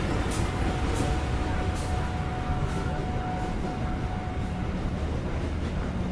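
Street traffic with vehicle engines running steadily as a low rumble. A thin steady tone rides over it from just after the start until about three quarters through.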